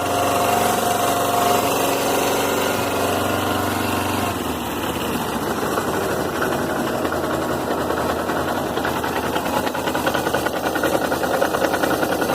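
Suzuki GS500E's air-cooled parallel-twin engine running at idle; about four seconds in its sound turns into a fast, even knocking rattle. This is the abnormal idle noise that the owner says could be the cam chain tensioner, the magneto gear or the clutch basket knocking.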